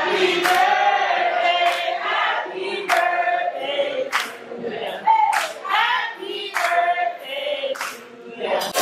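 A group of voices singing together, holding long notes, with sharp hand claps about once a second.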